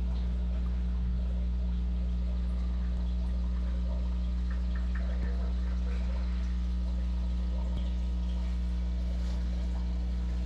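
Aquarium equipment running: a steady low electrical hum with faint bubbling and trickling water from the air-driven sponge filter's bubble stream.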